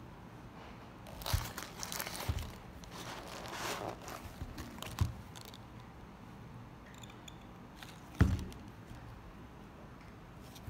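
Handling noise from a sneaker being squeezed and turned in the hand: rustling and scraping of fabric with a few dull knocks, the loudest about eight seconds in.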